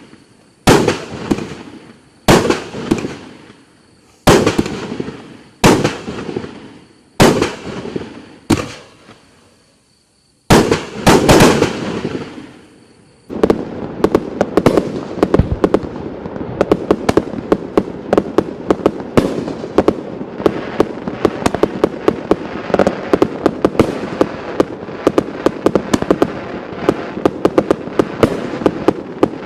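A 500-gram consumer fireworks cake firing its shots. For the first half there is a single loud bang about every second and a half, each with a fading tail. About halfway through it changes to a dense, rapid run of many small reports.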